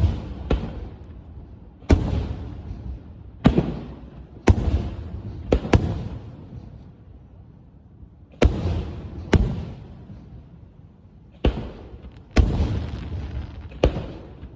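Fireworks going off: about a dozen sharp bangs at irregular intervals, some in quick pairs, each followed by a rolling echo that dies away.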